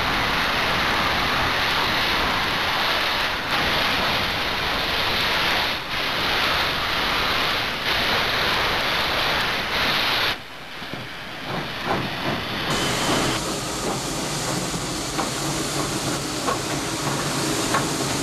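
Steam cog locomotive hissing steam, a loud steady hiss dipping briefly about every two seconds; it breaks off abruptly about ten seconds in, and the train is then heard with scattered clicks and knocks.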